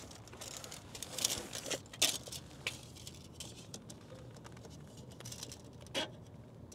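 Scattered soft rustles, scrapes and clicks of a tape measure being handled and its blade pulled out and held against a car's wheel well, denser in the first few seconds, with one sharper click about six seconds in.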